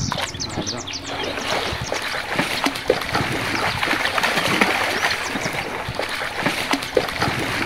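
Continuous irregular splashing and sloshing of water in a swimming pool as a child swims.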